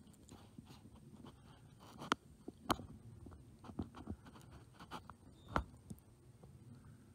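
Handling noise from a digiscoping camera rig being moved on its scope: low rumbling and small clicks, with three sharper knocks standing out.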